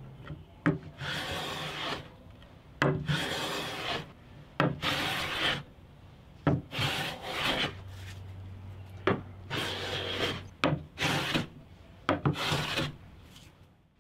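Hand plane being pushed along a wooden board, taking shavings in repeated strokes. There are about eight strokes, each a second or so long, and each begins with a sharp click followed by a hiss.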